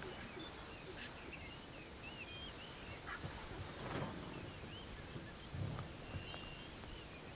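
Faint outdoor ambience with a small bird repeating short, wavering chirps, and a couple of soft low thumps partway through.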